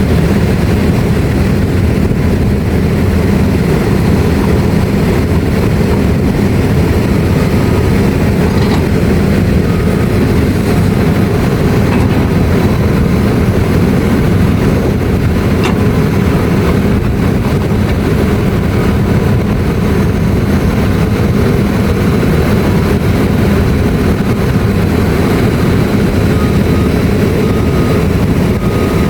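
Heavy machine running: a steady, loud low rumble with no breaks.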